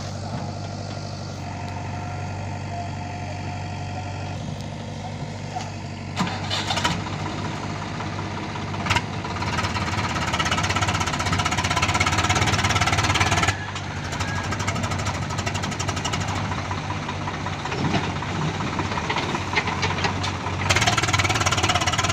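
Diesel engines running steadily: the Swaraj 744 FE tractor's three-cylinder diesel idles alongside a JCB 3DX backhoe loader's engine as the loader works. The engine noise grows louder for several seconds in the middle and drops abruptly about thirteen seconds in.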